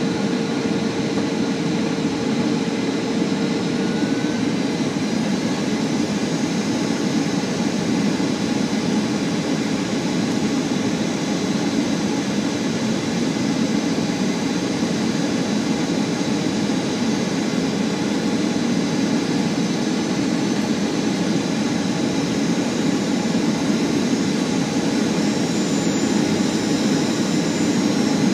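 Cabin noise inside a Boeing 737 on final approach: the steady rush of airflow and the jet engines at approach power. A faint steady whine fades out after about four seconds.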